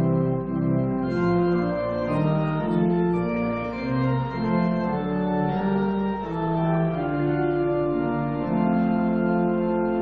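Organ playing the postlude after the benediction: sustained chords that move from note to note, settling into a long held chord near the end.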